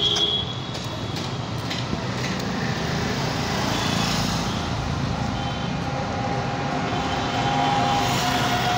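Street traffic on a busy road: motorcycles and other vehicles passing in a continuous drone. A steady pitched tone joins in through the second half.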